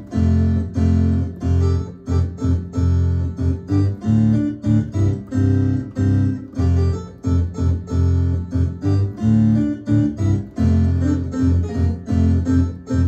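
Digital piano played with both hands: a steady, rhythmic accompaniment of bass notes and chords.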